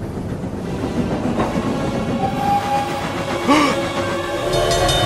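Sound effect of a train running fast along the rails: a steady rumble with wheel clatter. A couple of steady held tones come in near the end.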